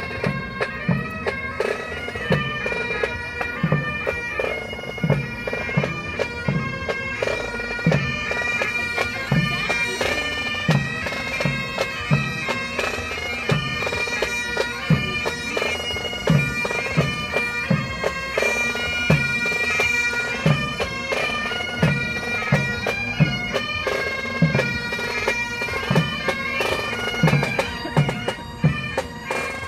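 Pipe band playing on the march: bagpipes sounding steady drones under the chanter melody, with a low drum thudding about once a second beneath.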